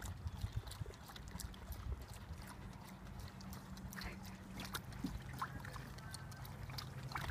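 Dogs wading in a shallow plastic kiddie pool: faint water sloshing with scattered small knocks of paws on the plastic.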